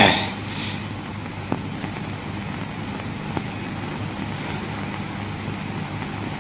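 Steady hum and hiss of an old 1950s film soundtrack, with a brief loud burst of noise at the very start and two faint clicks later on.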